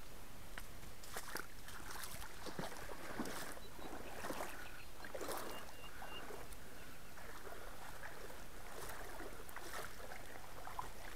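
Water splashing and lapping close to the microphone as it moves across a calm lake, in irregular washes over a steady hiss.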